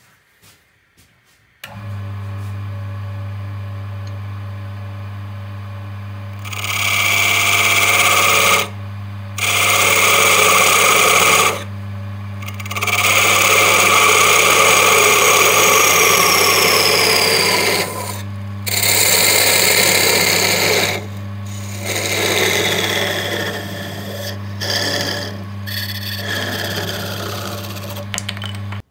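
Wood lathe running with a steady hum that comes in about two seconds in, while a hand-held turning tool cuts a spinning wooden chess piece. The cuts come as several long stretches of loud, hissing shaving noise with short pauses between them.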